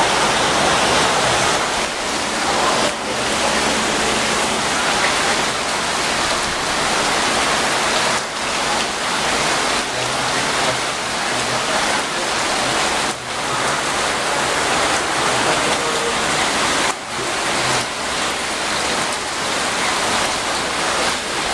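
Heavy hurricane rain with wind, a steady loud rush that drops off briefly every few seconds.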